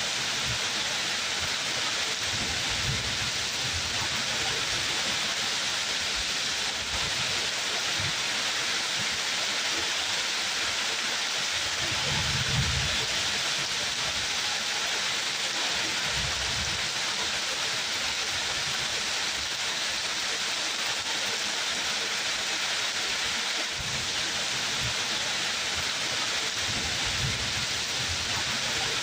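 Steady heavy rain, a dense even hiss, with brief low rumbles every few seconds, the strongest about halfway through.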